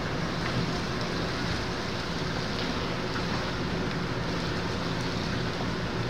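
Steady hum and hiss of an indoor pool hall, unchanging and with no distinct events.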